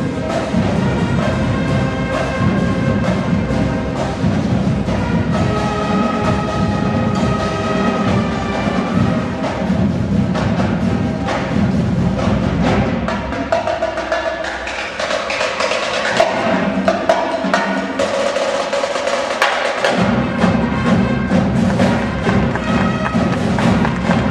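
Marching band playing, brass with drum-line percussion. For several seconds past the middle the low instruments drop out, leaving the higher parts, before the full band comes back in.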